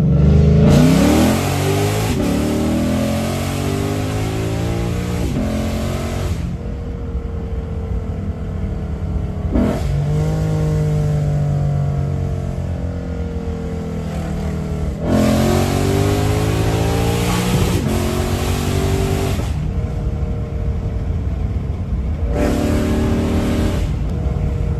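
Lexus RC F 5.0-litre V8 breathing through unequal-length long-tube-style headers, accelerating hard several times. Its pitch climbs with a quick drop at each upshift, and it eases off and settles between pulls. It is heard from inside the cabin with the windows open.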